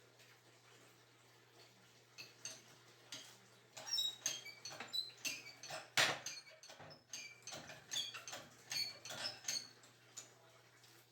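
A series of irregular light clicks and clinks of small hard objects, some with a brief high ring, starting about two seconds in; the sharpest knock comes about six seconds in.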